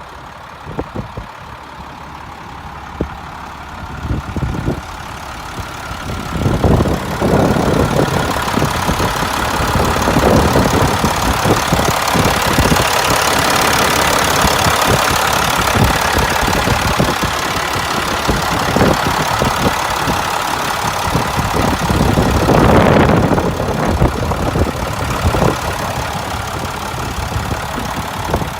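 Diesel engine of a 1996 International 4900 bucket truck running with a knocking clatter. It grows louder about six to seven seconds in and swells again briefly near the end.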